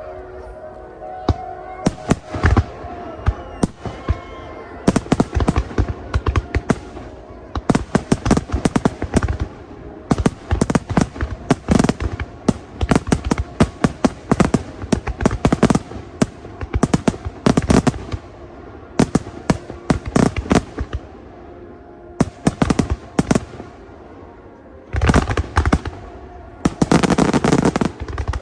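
Fireworks display, shells bursting in rapid volleys of sharp bangs and crackles. The densest, loudest barrage comes near the end.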